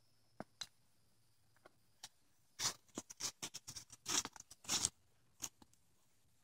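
A ridden horse trotting close past: a quick, irregular run of hoof falls and clinking tack, starting about two and a half seconds in and fading out near the end.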